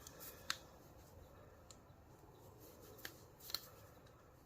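A few faint, sharp clicks of small metal parts and tools being handled, about four over several seconds, against near silence.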